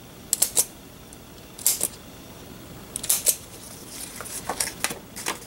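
Handheld single-hole paper punch clicking as it punches through planner pages, a series of sharp, irregular clicks in about five quick clusters.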